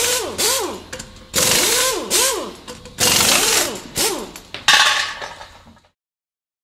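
Sound effects for an animated logo outro: bursts of whooshing hiss, each starting suddenly and fading over about a second, with tones that sweep up and down beneath them. One burst is fading at the start, three more follow about every second and a half, and it all cuts off about a second before the end.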